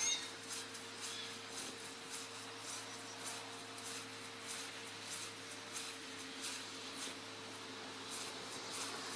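Scythe blade swishing through long grass in quick regular strokes, about two and a half a second, made fast and high by the sped-up footage, over a steady low hum.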